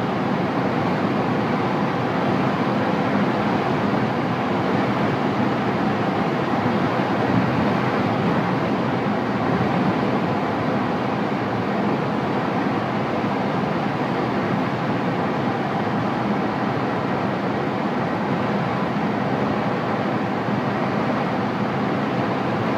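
Steady rush of air streaming over a glider's canopy and fuselage in flight, heard inside the cockpit.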